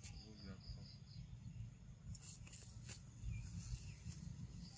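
Faint outdoor ambience: insects chirping in a fine high pulsing trill for about the first second, over a steady low rumble, with a few soft clicks later on.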